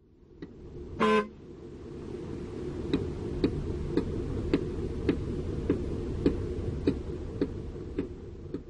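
A heavy-equipment diesel engine running steadily with a low rumble. About a second in there is a short toot, and from about three seconds in there are regular sharp ticks a little under twice a second.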